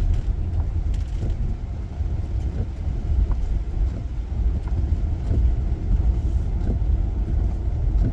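A car driving along, heard from inside the cabin: a steady low rumble of engine and tyre noise.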